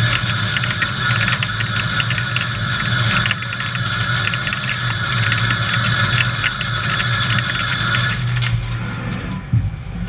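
Samsung SL 30 CNC lathe running: a steady low hum with a dense hiss and rapid fine crackle above it, the hiss dropping away about eight seconds in.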